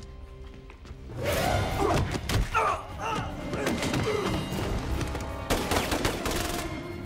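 Movie gunfight sound effects: a dark music bed, then about a second in a heavy burst of gunfire breaks out, many shots in quick succession mixed with impacts.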